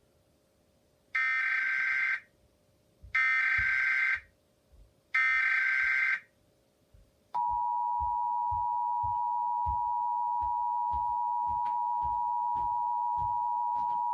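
Emergency Alert System tones: three short buzzy SAME header data bursts about a second apart, then the steady two-tone EAS attention signal (853 and 960 Hz together) starting about seven seconds in and holding. They announce a tornado warning about to be read.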